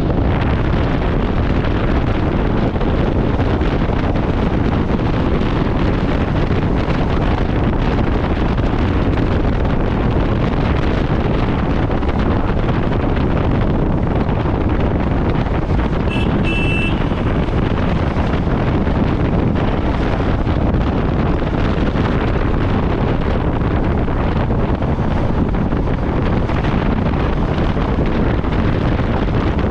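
Steady rush of wind buffeting the microphone on a motorcycle riding at road speed, with the bike's running noise underneath. A short high-pitched beep sounds about halfway through.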